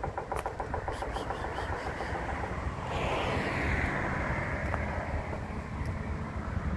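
Motor traffic: a steady low rumble with an engine running. About three seconds in, a vehicle passes, its sound swelling and its pitch sliding down as it goes by.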